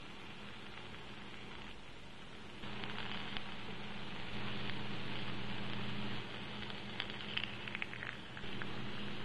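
Oil sizzling in a cast-iron skillet as cherry halves and pancake batter fry, over a steady low hum. The sizzle gets louder in a sudden step about two and a half seconds in, with a few sharper crackles around seven seconds.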